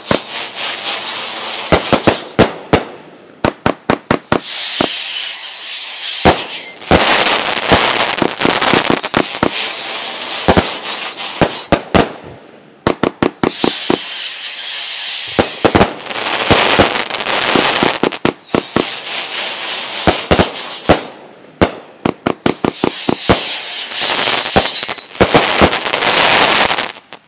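A 500 gram firework cake firing a long string of shots: sharp launch reports and bangs with dense crackling between them. A high, wavering whistle sounds three times, about 4, 14 and 24 seconds in, and the barrage cuts off suddenly near the end.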